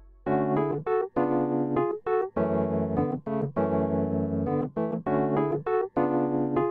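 Background music on a keyboard instrument: a run of short chords with brief breaks between them, starting a moment in.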